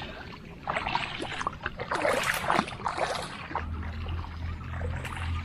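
Water splashing and sloshing in irregular bursts, as of someone wading through shallow floodwater. A low steady hum comes in a little past halfway.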